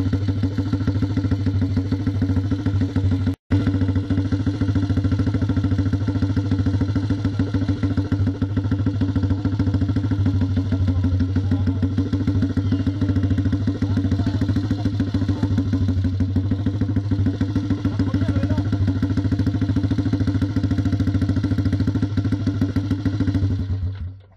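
Land-speed-record motorcycle engine idling steadily while the bike stands still, then cutting out near the end.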